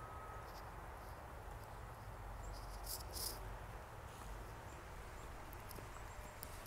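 Faint outdoor ambience during a snowfall: a steady low hiss with a few short high-pitched ticks, the clearest about three seconds in.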